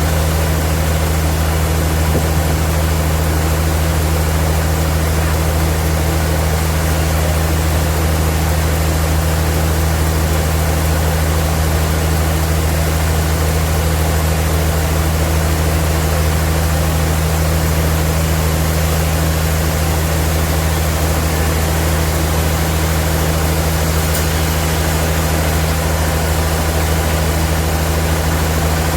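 Sawmill machinery running at a steady speed: a constant low hum with a hiss of noise above it, unchanging throughout.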